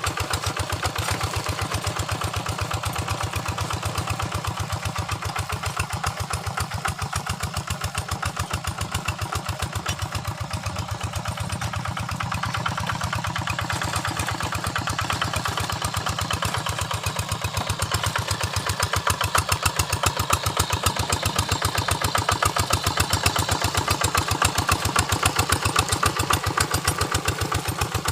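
Quick Impala two-wheel hand tractor's single-cylinder diesel engine running steadily with rapid, even firing pulses, a little louder about two-thirds of the way in.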